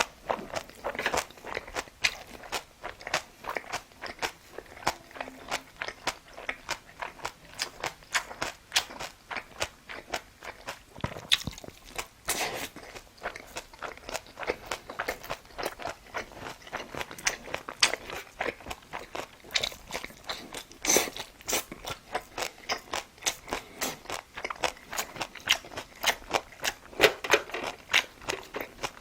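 A person chewing and biting food: a steady run of crunchy clicks several times a second, with a few louder bites.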